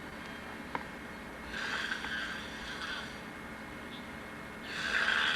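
A person snoring in their sleep: slow, noisy breaths about three seconds apart. One breath comes about a second and a half in, and the next begins near the end.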